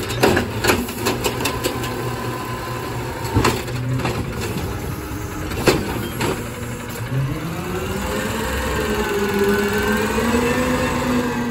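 Peterbilt 520 garbage truck's automated side-loader arm dumping a recycling cart: a run of clattering knocks from the recyclables and the cart banging at the hopper over a hydraulic whine, with the engine running underneath. From about seven seconds in the engine revs up and rises in pitch as the truck pulls away.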